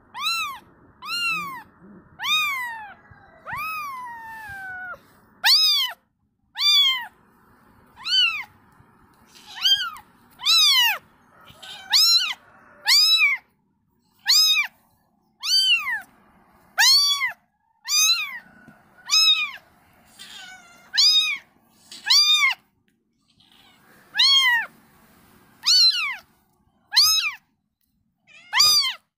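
A kitten mewing over and over, about one high mew a second, each rising and then falling in pitch; the first few mews are longer and slide downward at the end.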